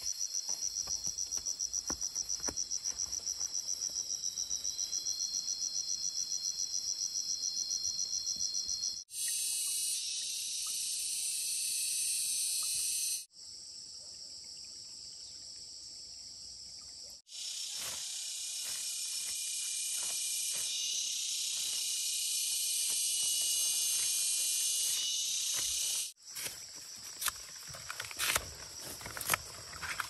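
Insects calling: first a loud, rapid pulsing trill, then after an abrupt cut a dense, shrill buzz that breaks off, a quieter stretch of low hiss, and the buzz again. Near the end the insects give way to a scatter of clicks and rustles.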